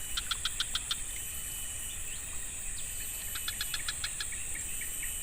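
Steady high-pitched drone of insects, with two short runs of rapid, evenly repeated chirping notes, one right at the start and one about three seconds in, then a quicker, softer run of ticks toward the end.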